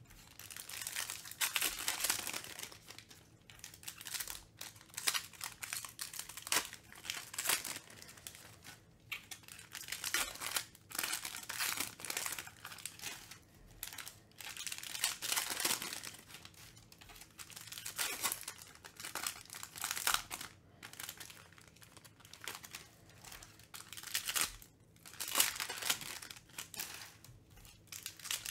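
Foil wrappers of Panini Mosaic football card packs crinkling and tearing as the packs are opened, with cards being slid and stacked, in irregular bursts every second or two.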